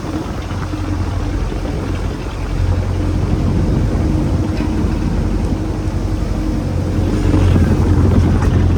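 Fishing boat's engine running steadily with a low drone, a little louder near the end.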